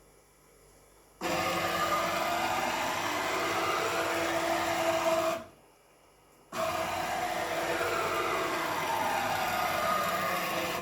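JMC iHSV integrated servo motor driving a homemade CNC machine's X axis: two traverse moves of about four seconds each, separated by a stop of about a second, each a steady mechanical run with a whine that shifts in pitch.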